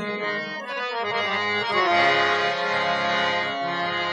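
Harmonium playing a melodic instrumental passage of held, sustained notes between the sung lines of a Sikh devotional song.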